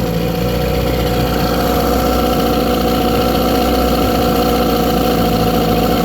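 1997 Tracker 40 hp outboard, made by Mercury, idling steadily.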